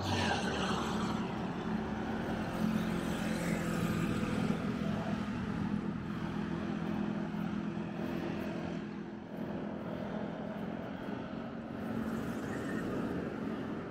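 Road traffic: cars passing close by, one going past right at the start with a falling pitch, over a steady engine drone.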